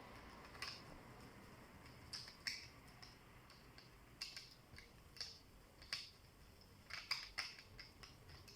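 Faint, irregular small clicks and taps, about a dozen spread unevenly with a close cluster near the end, from hands and tools working on the parts of a Lenovo IdeaPad Z500 laptop as it is taken apart.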